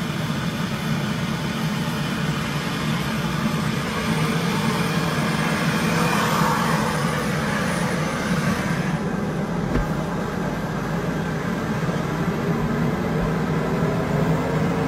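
Helicopter running on the ground with its main rotor turning: a steady engine drone and hiss, with a whine that rises slowly over the last few seconds.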